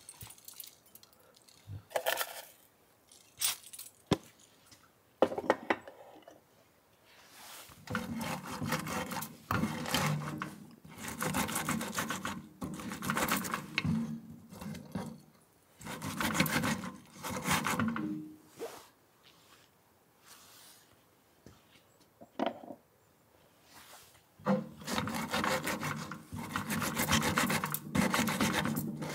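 A wooden pestle grinding sesame seeds in a ridged Japanese mortar (suribachi), a gritty rubbing sound in several spells of two to four seconds. A few separate knocks come first.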